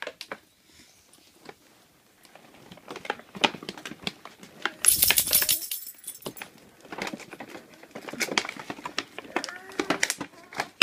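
Plastic toy tools and their packaging being handled: scattered clicks, knocks and rustling, with one loud, hissy rush of noise about five seconds in that lasts about half a second.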